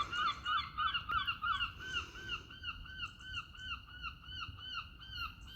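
A bird calling a long run of evenly spaced notes, about four a second, slowly fading.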